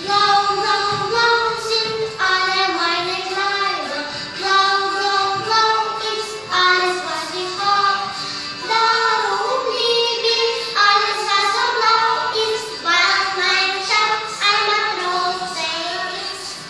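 Young children singing a song in German over an instrumental backing track.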